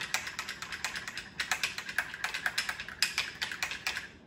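A utensil clicking and scraping against a bowl in quick, irregular strokes as a yogurt, tandoori masala and lemon juice marinade is stirred.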